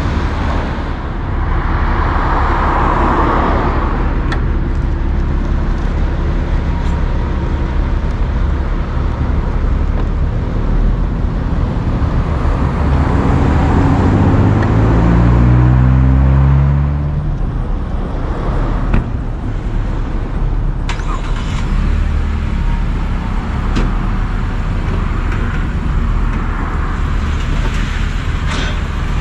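Vehicle engines running with a steady low rumble, as a pickup is driven down a car-carrier ramp. About halfway through, an engine note rises in pitch for several seconds and then stops suddenly, followed by a few sharp knocks.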